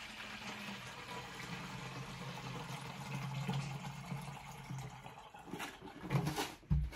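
Water poured from one plastic bottle into a plastic jug, refilling a steamer's water supply: a steady pouring fill that stops about five and a half seconds in, followed by a few light knocks as the bottles are handled.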